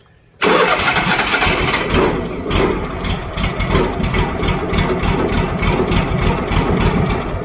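Portable sawmill's gasoline engine starting about half a second in, catching at once on a little throttle, then running with a fast, even firing beat.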